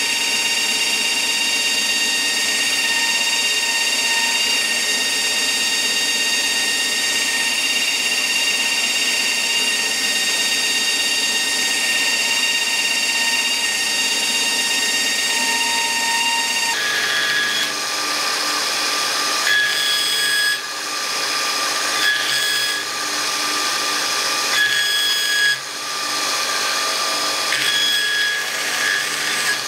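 Belt grinder running with a steady whine as a steel Bowie knife blade is ground on the abrasive belt. About two-thirds of the way through, the pitch of the whine shifts suddenly and the sound dips briefly several times as the blade is pressed to the belt and lifted off.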